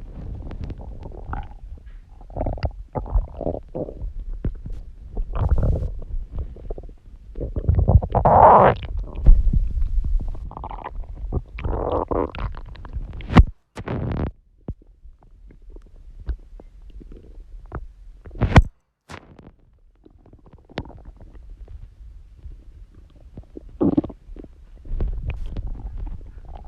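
A person's stomach growling: a string of irregular gurgles and low rumbles, loudest about eight to twelve seconds in, with a couple of sharp clicks in between.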